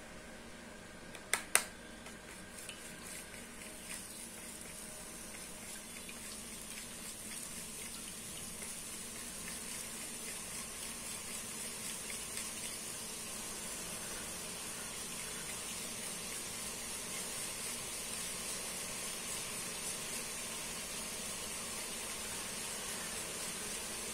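Boondi batter frying in hot oil in a steel kadai: two sharp clicks about a second and a half in, then a sizzle that builds slowly and grows louder as more batter drops into the oil.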